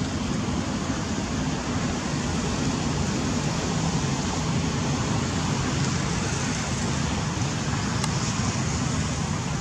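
Steady outdoor background noise: an even low rumble with hiss above it, with no distinct calls or knocks.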